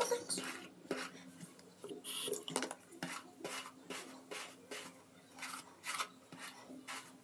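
Hair being handled and gathered into a ponytail with a scrunchie: a run of short rubbing, scratchy strokes, about two to three a second.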